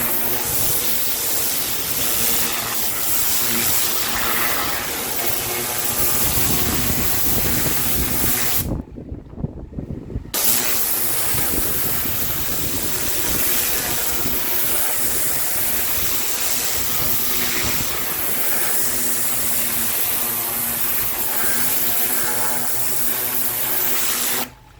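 Pressure washer spraying water onto paving: a steady hiss of spray over the machine's hum. It cuts out for about a second and a half about nine seconds in, then runs on and stops just before the end.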